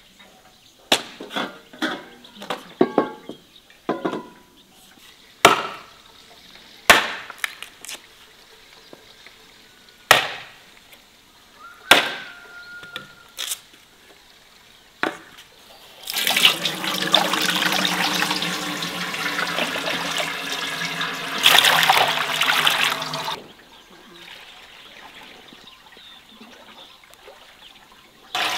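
A run of sharp wooden knocks as planks are split into kindling. About halfway through, a cloudy liquid pours for about seven seconds into a cheesecloth-lined steel pot, then stops.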